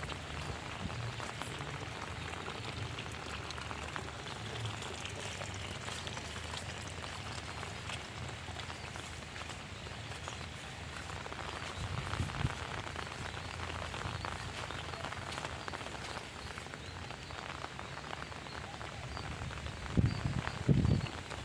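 Heavy rain falling steadily, with many small close drop impacts. A few loud low thumps come near the end.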